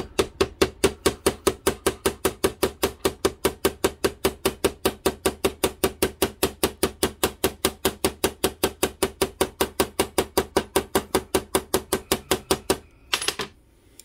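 Ball-peen hammer tapping rapidly and evenly on the bent edge of a metal RC boat rudder laid on a plastic cutting board, about six light taps a second, peening the damaged edge back into shape. The tapping stops near the end, followed by one short scrape.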